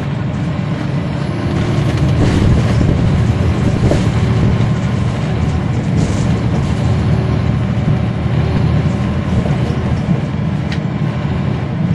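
Inside a NABI 40-foot transit bus under way: its Caterpillar C13 diesel engine runs with a steady low rumble, mixed with road noise and occasional rattles from the body.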